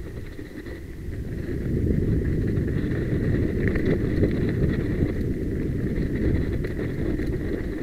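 Mountain bike riding fast down a dirt trail: a rough rumble of tyres over the ground with rattling jolts from the bike, and wind buffeting the microphone. It grows louder about two seconds in.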